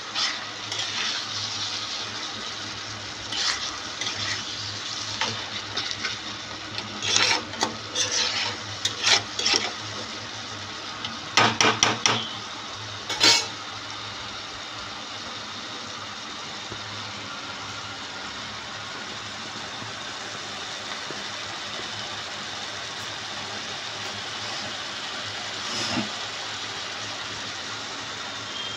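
A flat spatula stirring and scraping a spinach, eggplant, potato and shrimp curry in a wok, with a run of scrapes and knocks against the pan through the first dozen seconds. Under it the curry sizzles steadily as it cooks down, and this sizzle is all that remains afterwards apart from one knock near the end.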